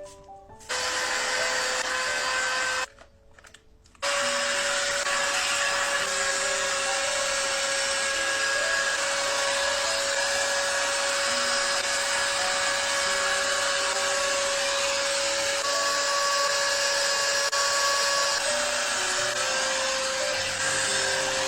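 A 5-in-1 hair dryer blowing air with a steady motor-and-airflow rush. It starts just under a second in, cuts out for about a second near the three-second mark, then runs steadily again.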